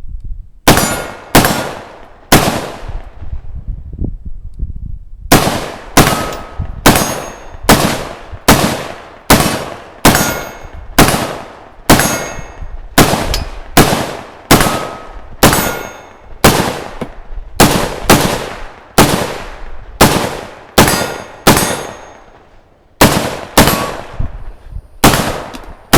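A firearm fired repeatedly in semi-automatic: three shots, a pause of about three seconds, then a steady string of about two shots a second. Each shot has a short ringing tail.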